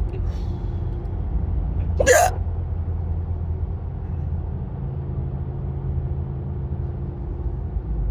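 A woman's single sharp hiccup about two seconds in, over the steady low rumble of a car on the road.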